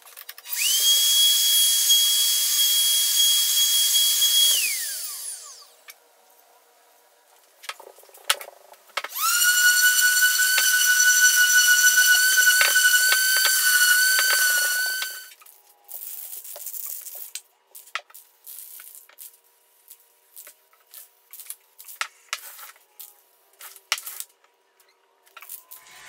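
A router in a router table runs with a steady high whine, then is switched off and winds down with a falling pitch. A few seconds later a random orbit sander runs with a steady whine for about six seconds and stops, followed by a run of short, irregular sounds.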